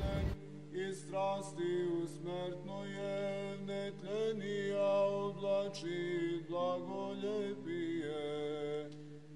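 Male voices singing a slow Orthodox chant over a steady held drone note (ison). A rush of noise cuts off just after the start.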